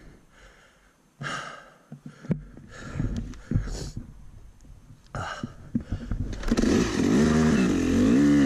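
Yamaha YZ250 two-stroke dirt bike engine coming in about two seconds in and running low, then revving up loudly near the end as the bike pulls away, its pitch rising and falling.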